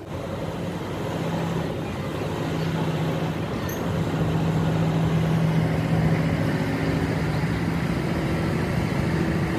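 A cargo barge's diesel engine running hard under load, a steady drone that grows louder over the first few seconds, as the barge pushes its way through a sluice gate.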